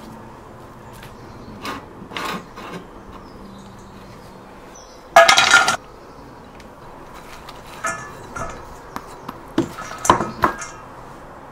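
Chopped vegetables tipped from a small bowl into a stainless-steel mixing bowl, with a loud half-second clatter and ringing of the steel about five seconds in. Lighter knocks and rustles follow as hands toss the vegetables in the bowl, clustered near the end.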